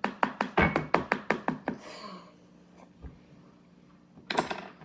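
A quick run of about ten sharp knocks or taps on a hard surface in under two seconds, then a brief cluster of knocks near the end.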